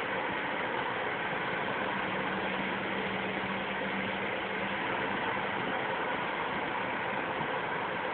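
Car driving through a road tunnel, heard from inside the cabin: steady tyre and engine noise, with a faint low hum that fades about five seconds in.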